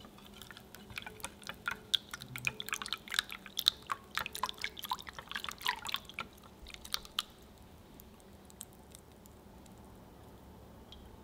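Silicone whisk beating thin crepe batter in a glass bowl, a quick run of wet clicks and sloshes as the melted butter is mixed in. The whisking stops about seven seconds in, leaving quiet room tone.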